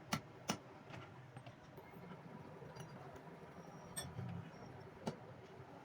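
A few sharp clicks or clinks, two close together at the start and two more later, over a faint steady background.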